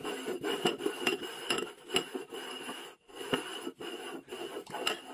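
Two upside-down porcelain bowls slid and shuffled across a wooden tabletop, scraping with many sharp knocks and clinks, and a short pause about three seconds in.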